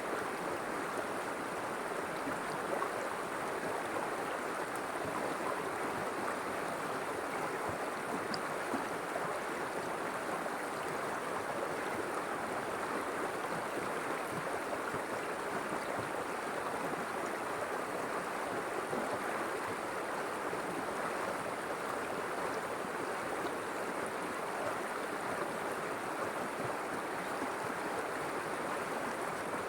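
River water flowing steadily over rocks, a constant rushing babble with no breaks.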